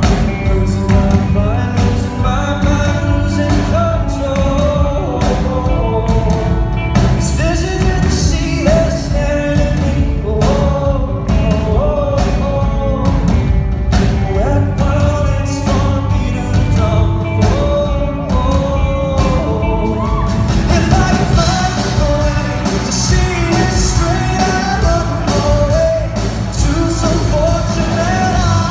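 A male lead vocalist sings with a live rock band over a steady drum beat. About twenty seconds in, the band gets fuller and brighter.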